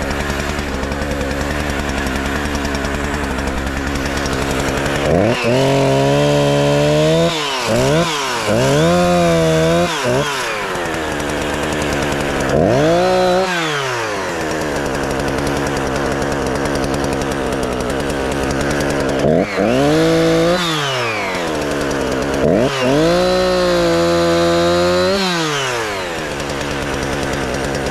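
Chainsaw running at idle and revved up to full throttle about five times. Each rev holds for a second or two before falling back to idle.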